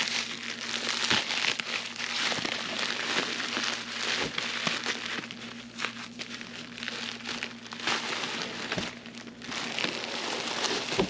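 Padded protective packaging bag crinkling and rustling with scattered crackles as it is worked off a hard saddlebag.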